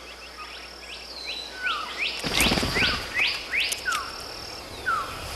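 Forest birds chirping: a string of short, quickly rising whistled notes, about two or three a second, with a few lower falling notes among them. A brief rustling rush comes about two seconds in.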